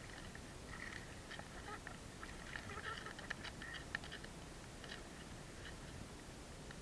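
Shallow seawater lapping faintly at the surface, with scattered small clicks and crackles.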